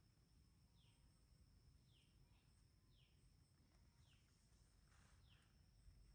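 Faint bird call: a short falling note repeated about once a second, over a steady thin high hum.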